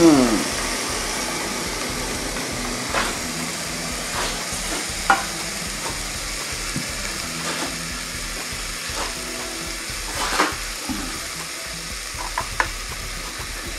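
Shrimp sizzling between the hot plates of a closed Chefman electric panini grill press: a steady hiss with occasional sharp pops.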